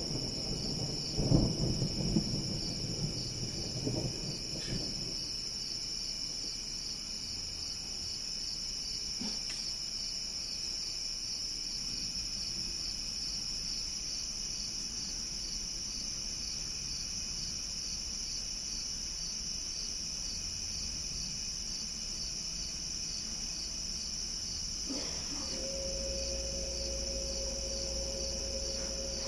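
Distant thunder rumbling and dying away over the first few seconds, over a steady chorus of night insects chirping. Near the end a click is followed by a steady low hum.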